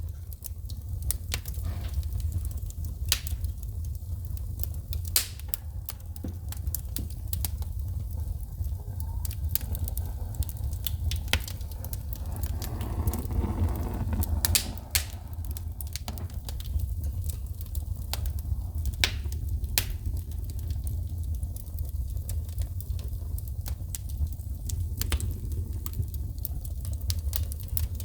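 Wood fire crackling, with frequent irregular sharp pops and snaps of sparks shooting from the burning logs over a steady low rumble. About halfway through, a soft hiss swells up for a couple of seconds and fades.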